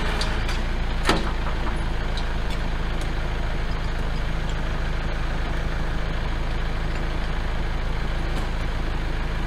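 Kubota compact tractor's diesel engine running at a steady speed, with no revving, as the tractor backs into position. A single sharp knock comes about a second in.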